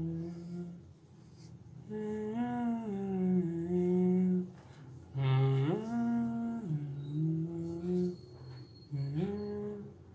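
A man humming a slow tune to himself in phrases, holding steady notes that step up and down, with short breaks between phrases.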